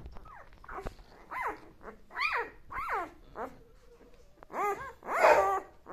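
Eight-day-old Doberman puppies whining and crying in a string of short calls, each rising and falling in pitch, loudest near the end. They are hungry and crying to nurse.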